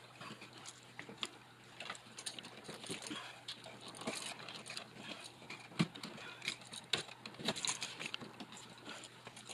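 Electrical wires and a light switch being pushed and bent into a crowded wall box by hand: irregular small clicks, scrapes and rustles, with a sharper click about six seconds in.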